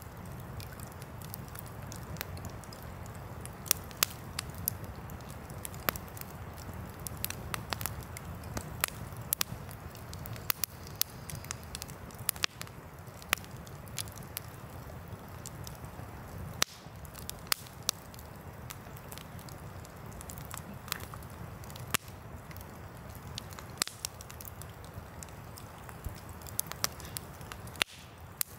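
Wood campfire crackling, with many sharp, irregular pops and snaps of burning logs, over a steady low rush of a nearby river.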